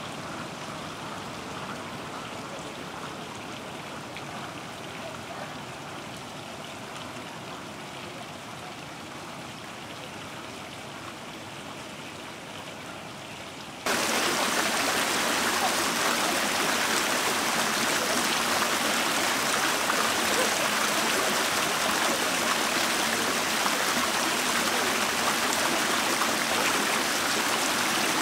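Steady, even rushing of water flowing in a thin sheet over dark stone slabs of a water feature, which starts abruptly about halfway through and is the loudest sound. Before it, a quieter steady outdoor background noise.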